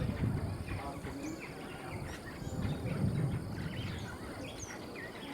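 Outdoor ambience of birds chirping, many short calls scattered through, over a low rumbling background noise with faint voices.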